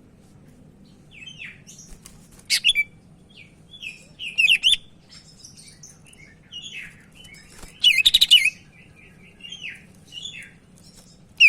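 Cucak ijo (green leafbird) singing a varied string of short chirps and whistled notes. Louder rapid bursts come about 2.5 and 4.5 seconds in, and a longer fast trill comes around 8 seconds.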